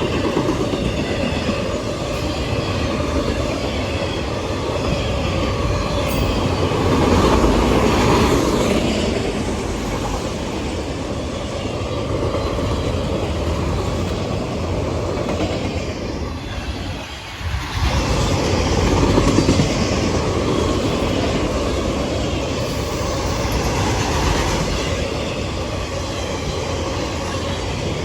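Norfolk Southern train rolling past steadily, its wheels clattering over the rail joints with a continuous rumble and some faint wheel squeal. The sound dips briefly about two-thirds of the way through.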